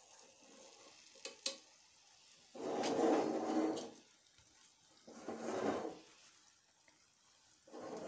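Two sharp clicks of a metal utensil against a cooking pan, then three scraping sounds about a second long each as the pan is handled and shifted on the gas stove's grate.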